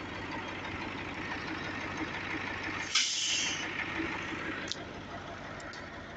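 Mertz 3250 floater's diesel engine running steadily at idle, with a short, loud hiss of released air about three seconds in, like an air brake or air system venting.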